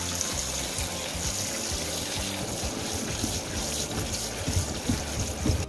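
Tap water pouring onto fresh kalguksu noodles in a stainless mesh strainer and splashing into a steel sink as the noodles are rinsed, with irregular soft knocks underneath. The sound stops abruptly at the end.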